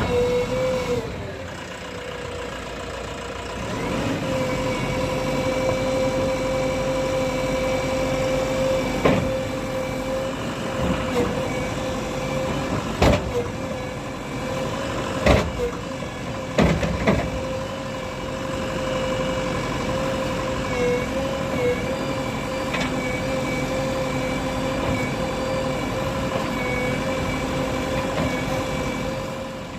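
JCB 3DX backhoe loader's diesel engine running steadily with a constant whine, broken by several sharp knocks near the middle.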